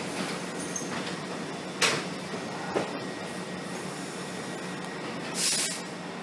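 R62A subway train standing at the platform with a steady hum, two sharp clicks a second apart, and a short loud hiss about five seconds in.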